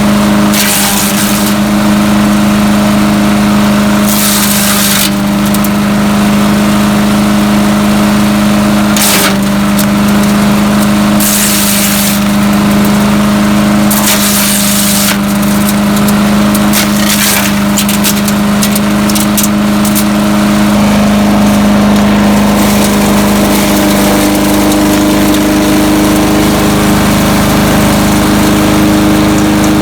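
Landworks 7 HP chipper shredder's gas engine running steadily at speed. Repeated short bursts of noise break over it in the first twenty seconds or so, as material goes through the chipper. About two-thirds of the way in, the engine note shifts and it runs on without the bursts.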